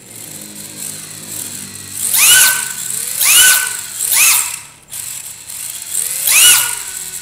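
RC drift car's brushless motor and gear drivetrain, run by a freshly calibrated Reve D Breve ESC, blipped from the transmitter as a throttle smoothness check. A light whir at first, then four quick rev-ups that rise and fall in pitch about a second apart, the last after a longer pause, with gear whir over a faint high electronic whine.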